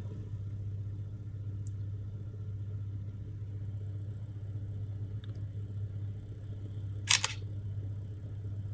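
Samsung smartphone's camera shutter sound, heard once about seven seconds in, as a photo is taken during the phone's camera test. It plays over a steady low hum.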